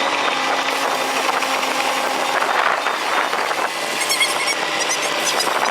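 Heavy machinery engine running with a steady din, with a short run of high squeaks about four seconds in.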